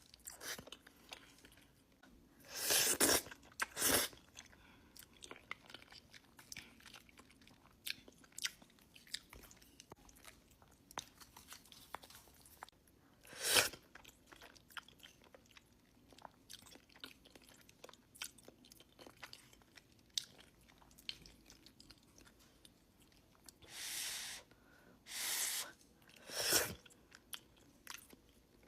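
Close-miked mukbang eating: steady chewing with many small wet clicks and crunches, broken by about six louder, brief bursts of biting or mouth noise.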